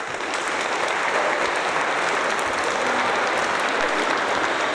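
Audience applauding: the clapping breaks out suddenly and then holds steady.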